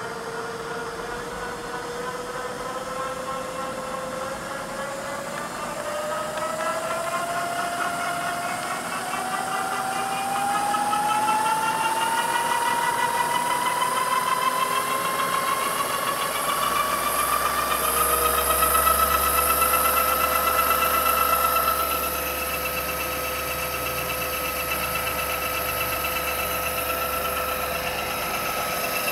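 Southwestern Trak DPM milling machine's spindle drive running with a whine that rises steadily in pitch over the first two-thirds as the spindle speed is turned up, then holds at a steady top speed.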